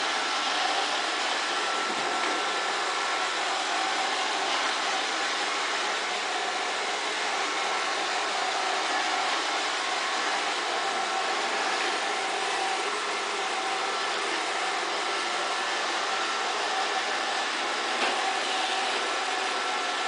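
iRobot Roomba robot vacuum running steadily, an even whirring hiss with a faint steady whine in it. There is one light knock about eighteen seconds in.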